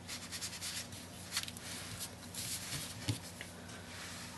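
Stamping sponge dabbing ink onto card stock: soft, quick, repeated scuffs of foam on paper, with a soft knock about three seconds in.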